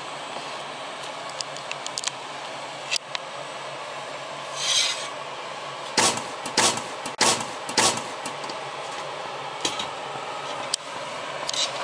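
Metal cookware being handled on a gas stove: a few sharp knocks and scrapes of a steel turner, wire grill and flat metal plate, four knocks coming in quick succession in the middle, over a steady hiss.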